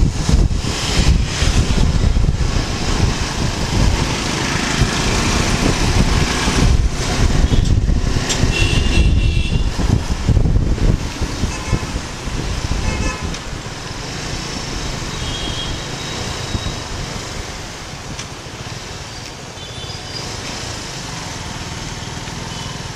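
Riding a Suzuki Gixxer 250 motorcycle through town traffic: wind rush on the microphone and the bike's engine running, rumbling loudest for the first half, then quieter as the bike slows behind cars. Short horn toots from the traffic come through several times.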